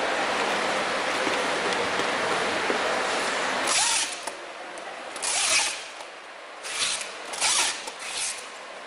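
Steady hiss, then packing tape being pulled off a handheld tape gun in about five short rasping rips, the longest about half a second, while a rolled carpet's plastic wrapping is sealed.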